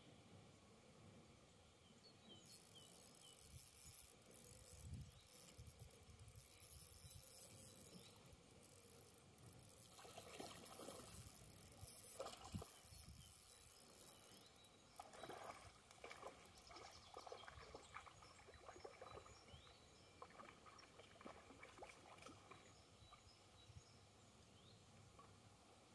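Near silence: faint outdoor ambience with a few faint bird chirps and some faint rustling and clicking between about ten and eighteen seconds in.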